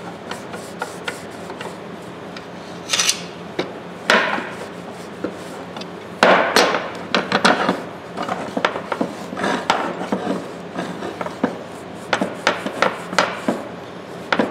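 A rag rubbing over a large steel tongue-and-groove pliers, with the pliers knocking and clicking against a hard work board as it is shifted and its handles opened. A few louder scrapes and knocks come in the first half, then a run of small clicks.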